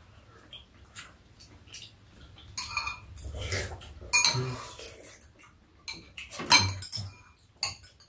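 Metal spoons and chopsticks clinking and scraping against ceramic bowls while two people eat, a scatter of sharp clinks with the loudest about two-thirds of the way through.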